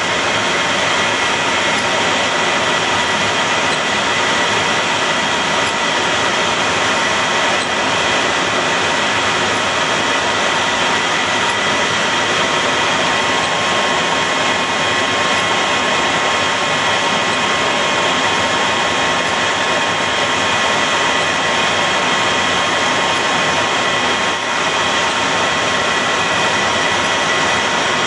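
F-14 Tomcat's jet engines running with a steady high-pitched whine over a loud rush of air, heard from inside the cockpit as the jet taxis on the carrier deck.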